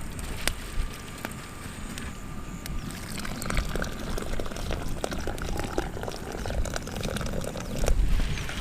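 Pot of basmati rice boiling in water as the half-cooked rice is scooped out, with scattered knocks and clinks of the utensil against the pot.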